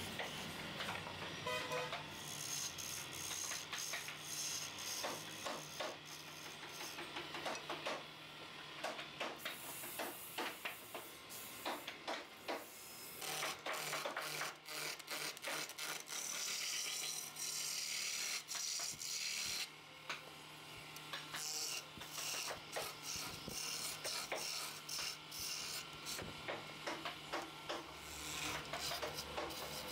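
Wood lathe running with a steady motor hum while the spinning wooden chair leg is worked: a rasping, scraping rub against the wood, full of short rapid clicks.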